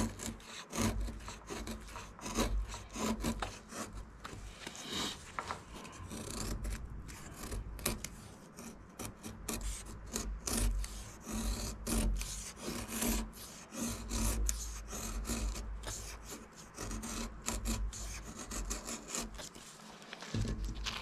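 Cold Steel Pocket Bushman folding knife carving wood in repeated, irregular scraping strokes.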